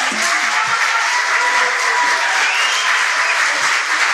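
Theatre audience applauding, steady clapping.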